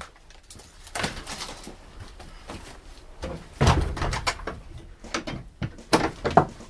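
A wooden door, then irregular knocks, thuds and rustling as people move about and handle things on a wooden table inside a small wooden shed. The loudest knocks come a little before four seconds in and around six seconds in.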